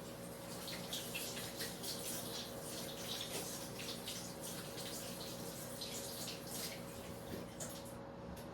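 Kitchen tap running while hands are washed under it, with the water splashing unevenly; the tap is shut off near the end.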